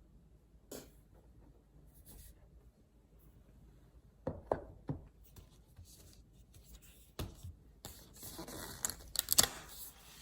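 Hands handling the iPad and its accessories: a few light taps and clicks, then about two seconds of rustling with sharp clicks near the end.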